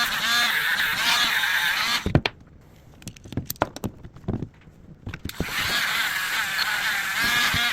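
Powered wire brush scrubbing rust off the metal of a hand brace, a wavering, squealing whine. It stops about two seconds in, leaving a few clicks and knocks of the tool being handled, and starts again a little after five seconds.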